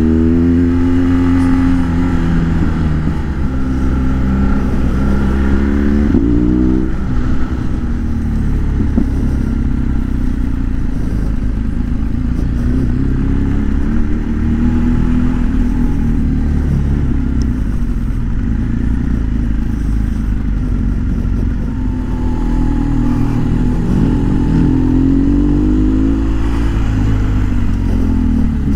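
Motorcycle engine heard from the rider's seat while riding. Its pitch climbs and drops with the throttle, with clear rises about six seconds in and again near the end, over a steady low rumble of engine and road noise.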